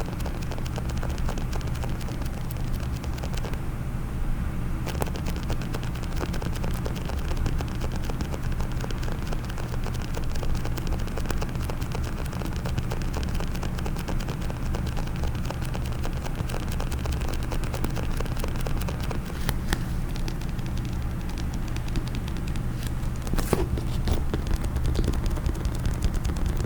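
Fingernails tapping and scratching rapidly on a hard case, a dense continuous patter of small clicks over a steady low rumble, with one sharper click about 23 seconds in.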